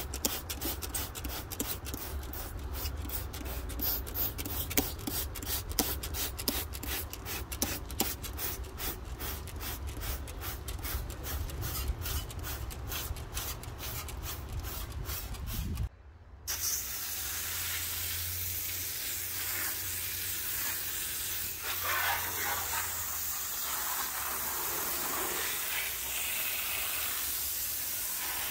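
Hand-held trigger sprayer wand spraying onto engine parts and bare car body metal: a hissing spray over a rapid ticking and a low hum. About sixteen seconds in these cut off briefly, then a steadier spray hiss follows.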